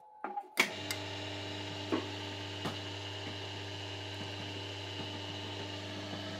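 An electric motor, likely that of a CBR test machine, is switched on with a click about half a second in and then runs with a steady hum. A couple of light clicks follow.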